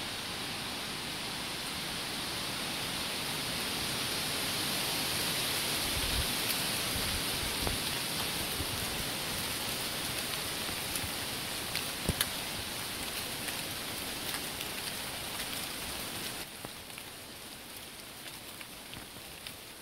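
Wind blowing through autumn woodland, a steady rush of rustling leaves that swells toward the middle and drops off noticeably near the end, with a few light ticks.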